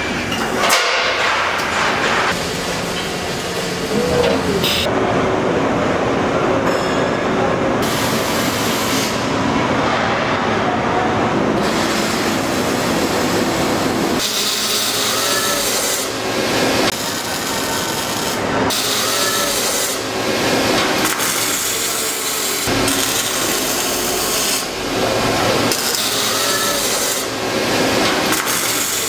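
Truck-frame robotic welding line running: dense, rasping machinery and welding noise with brief short whines now and then, changing abruptly several times.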